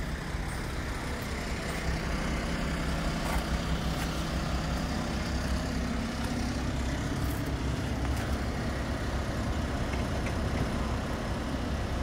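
Steady outdoor background rumble with no distinct events.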